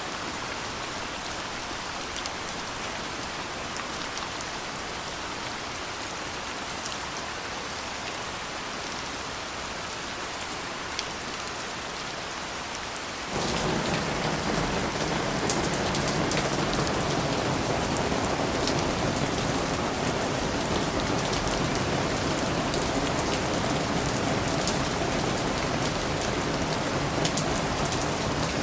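Steady rain falling, with separate drops ticking through it. About thirteen seconds in, it switches abruptly to a louder, fuller, deeper rain sound.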